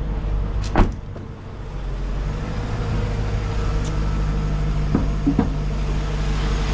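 Mercedes-AMG M113 V8 idling steadily, with one sharp click about a second in and two lighter knocks about five seconds in.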